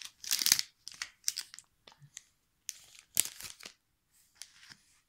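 Foil wrapper of a trading-card booster pack crinkling in the hand in several short bursts as the pack is handled and pulled open.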